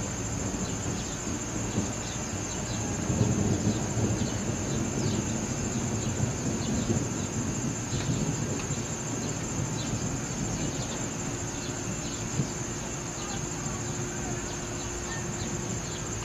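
Insects chirring: a steady high drone with a scatter of short chirps. Under them a low rumble of distant thunder swells a few seconds in, then fades.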